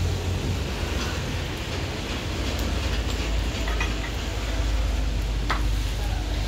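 A steady low rumble, with a few light metal clicks and taps as the parts of a dismantled car steering rack are handled, the sharpest about five and a half seconds in.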